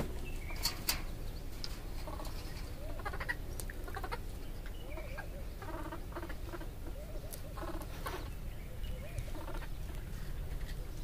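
Vervet monkeys making short, squeaky calls and chirps, repeated on and off, with a few sharp clicks of movement on branches or mesh near the start.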